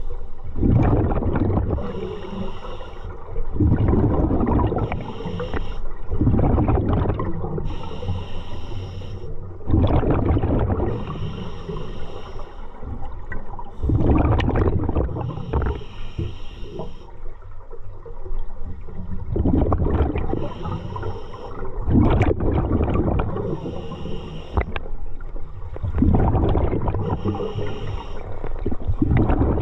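Scuba diver breathing through a regulator underwater: bubbly, rumbling exhalations every few seconds, alternating with hissing inhalations.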